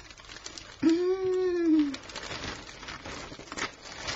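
Clear plastic vacuum storage bags crinkling as they are handled. About a second in, a single pitched hum lasting about a second, rising slightly then falling, is the loudest sound.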